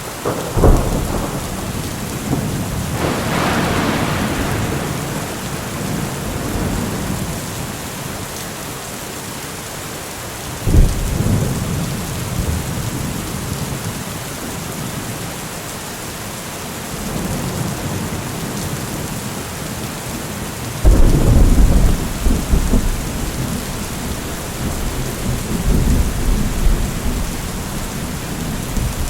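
Steady heavy rain with repeated thunder: a sharp crack just after the start, a long rumble a few seconds in, another about a third of the way through, and the loudest, rolling peals about two-thirds of the way through.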